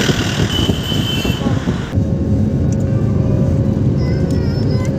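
A motor vehicle running, a steady low rumble. About two seconds in the sound changes abruptly: the high hiss drops away, and a steady hum and faint high chirps join.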